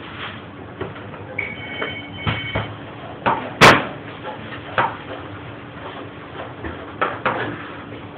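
Working kitchen clatter: scattered knocks and clanks, the loudest a sharp clack about three and a half seconds in, with a brief ringing tone in the first half, over a steady hum.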